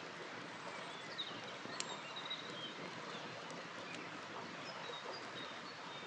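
Outdoor ambience: a steady rushing hiss of a small creek, with a few short bird chirps and scattered sharp pops from a small wood campfire.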